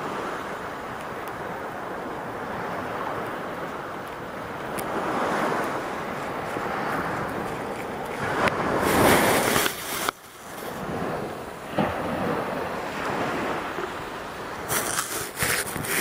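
Sea surf washing steadily on a sandy beach, swelling and easing, with wind on the microphone. A louder surge about eight seconds in stops abruptly about two seconds later, and a few crackles come near the end.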